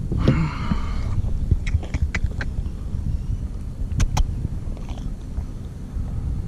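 Wind buffeting the microphone on an open kayak, with a brief harsh call in the first second and then a handful of sharp taps or knocks, two of them close together about four seconds in.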